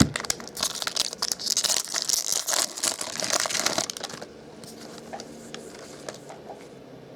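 The wrapper of a pack of baseball cards being torn open and crinkled, a dense crackling for about four seconds, then only faint handling ticks.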